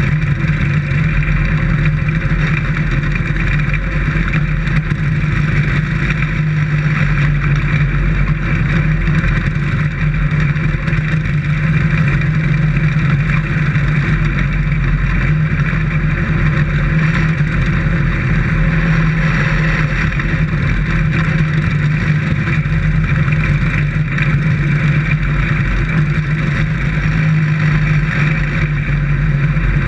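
Dirt-track race car's engine running hard at high, fairly steady revs under racing load, heard from inside the cockpit.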